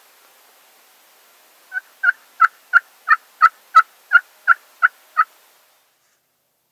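A series of about eleven hen turkey yelps, evenly spaced at about three a second, made on a hand-held turkey call.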